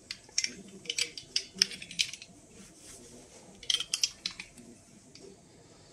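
Two clusters of sharp clicks and light knocks, the first over the opening two seconds and another around four seconds in: small photomultiplier tubes being picked up and knocking against each other in the hand.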